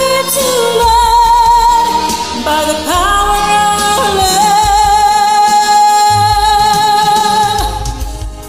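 Woman singing over a karaoke backing track, sliding up into a long held note with vibrato that ends near the close as the music fades out.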